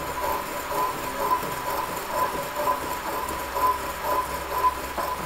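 An Inconel engine valve tip grinding against the stone of a hand-cranked valve-tipping jig. It makes a steady, rhythmic grind that swells about twice a second as the crank turns. The very hard valve tip is being ground down a few thousandths of an inch.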